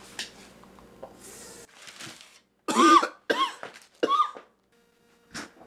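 A person coughing in a run of harsh, short coughs starting about three seconds in, with one more cough near the end, after drawing on a lit cigarette.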